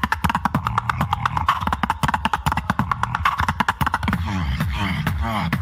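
Beatboxer performing: a fast run of sharp clicking and percussive mouth sounds, changing about four seconds in to deeper, pitched vocal bass sounds over a steady beat.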